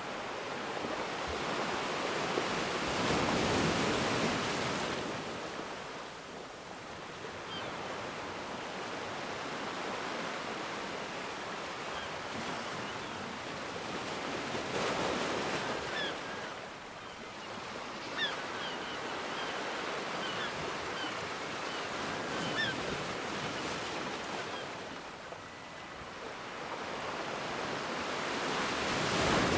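Ocean surf: waves swelling and washing in three times, roughly every twelve to fourteen seconds, with a steady hiss of water between them.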